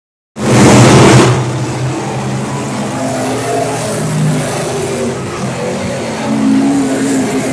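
Dirt-track modified race car engines running around the oval, the pitch rising and falling as the cars rev and ease off through the turns. A loud rush of noise fills the first second or so, after a brief silence at the very start.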